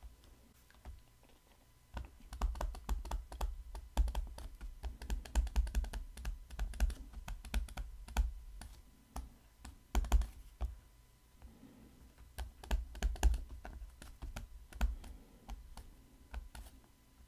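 Stylus tapping and clicking on a tablet screen as words are handwritten: a quick, irregular run of clicks and light knocks that starts about two seconds in.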